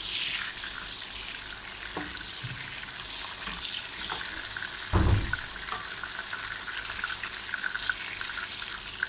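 Beef frankfurters frying in a pan: a steady sizzle with scattered crackles. A single dull knock, the loudest sound, about five seconds in.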